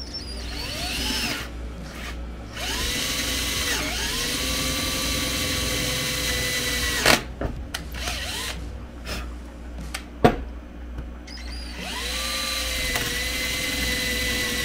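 Cordless drill with a 3/8-inch bit boring down into the wooden axe handle in the eye, where the steel wedge was, to open the hole for a tapered maple wedge. It runs in several bursts: each time the motor whine rises as it spins up, holds steady for a few seconds, then stops. A couple of sharp knocks fall between bursts.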